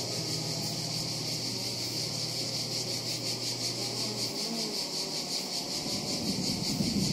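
Outdoor insect chorus: a high, evenly pulsing chirring that keeps going throughout. A low steady hum underneath stops a little after four seconds in.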